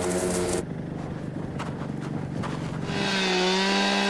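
Snowmobile engine running at speed, cut off abruptly under a second in. After a quieter, rougher stretch, a gas-powered ice auger runs with a steady buzz from about three seconds in, drilling a test hole through lake ice.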